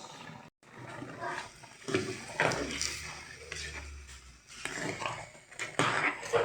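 Pots and utensils clinking irregularly, mixed with short, indistinct voice-like sounds.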